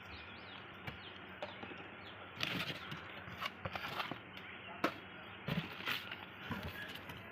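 Scattered light clicks and a few duller knocks over a low steady hiss, with no motor running.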